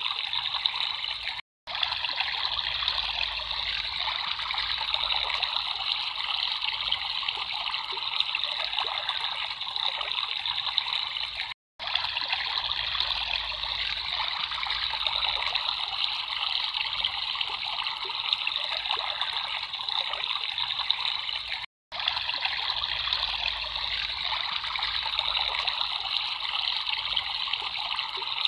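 Water trickling in a small stream: a steady running wash, cut by a short silent gap about every ten seconds.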